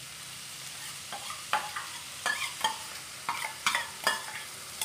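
Onions, tomatoes and green chillies frying in coconut oil in an aluminium kadai, a steady sizzle. From about a second in come about seven sharp metal clinks as ginger-garlic paste is scraped and tapped out of a steel bowl into the pan.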